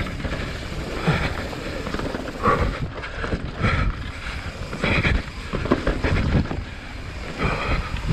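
Wind buffeting an action camera's microphone over the rumble and rattle of a YT Jeffsy mountain bike rolling fast down a dirt singletrack, rising and falling in uneven surges.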